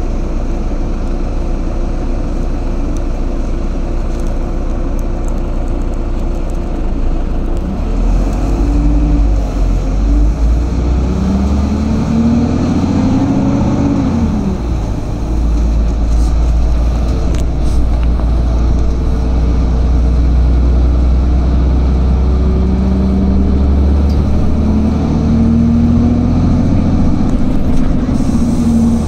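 Cabin noise of a moving bus: a loud, steady low rumble of engine and road that grows heavier about eight seconds in. A humming tone rises and falls in pitch around the middle and again near the end.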